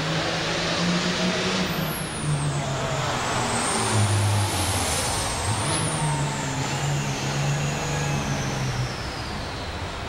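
Turbocharged International Harvester super farm pulling tractor's diesel running under full load while pulling the sled. A high turbocharger whine sits over the engine: it falls at first, rises to a peak around the middle, then falls gradually over the second half as the pull slows.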